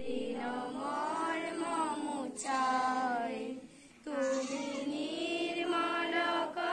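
Young voices singing a slow assembly prayer, long drawn-out notes gliding from one to the next, with a brief pause a little past the middle.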